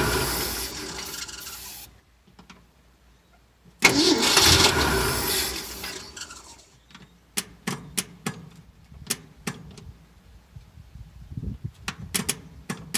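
The starter cranks the 1965 Ford F-500 fire truck's engine in two bursts of about three seconds each, switched on by shorting across the terminals because the solenoid is out; the engine does not catch. A run of sharp clicks follows.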